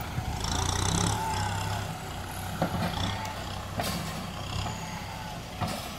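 Kubota M6040SU tractor's diesel engine running under load as its front dozer blade pushes sand. The engine is louder for the first couple of seconds, and a few sharp clanks come through about midway and near the end.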